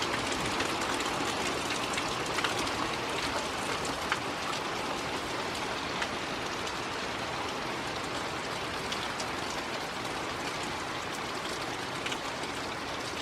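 Heavy thunderstorm rain falling steadily: a dense hiss with scattered sharp taps of drops close by, easing off gradually as the downpour subsides.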